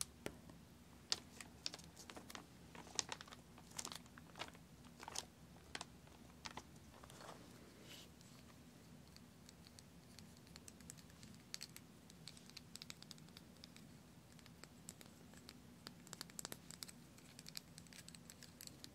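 Fingertips and nails tapping, pressing and scratching on a sand art board's film-covered sticky sheet: faint, scattered crinkles and light clicks, thicker in the first half and sparser later.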